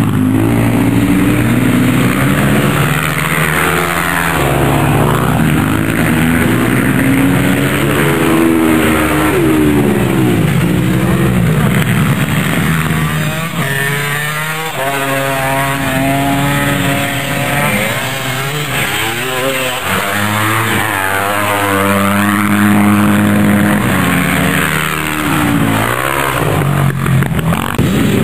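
Off-road motorcycle engine revving hard and easing off again and again, its pitch climbing with each burst of throttle and dropping away.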